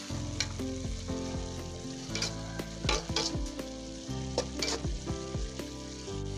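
Metal spatula scraping and clinking against an aluminium wok in repeated strokes while bean sprouts and spring onion are stir-fried, with the food sizzling.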